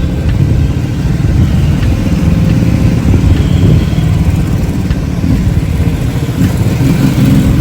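Motorcycle on the move, heard from on board: engine running under a loud, choppy rush of wind on the microphone.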